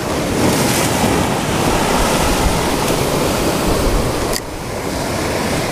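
Ocean surf washing and breaking against lava rocks, a steady rushing, with wind buffeting the microphone. The level drops briefly a little past four seconds in.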